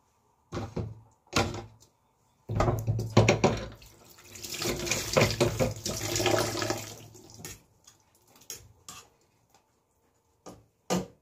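Two metal knocks of cookware, then about five seconds of water running and splashing, then a couple more knocks near the end.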